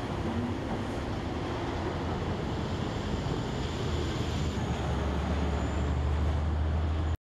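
Street traffic noise with a vehicle engine's steady low hum, which grows stronger about halfway through.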